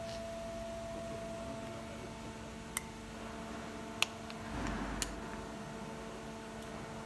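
Three sharp clicks about a second apart, with a short rustle of handling just before the last, as small parts are handled and fitted on an alternator's freewheel pulley. A steady hum of several tones runs underneath.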